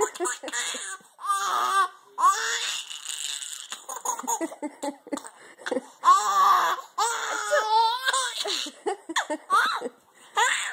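A baby laughing, in repeated fits of high, breathy laughter with short pauses between them.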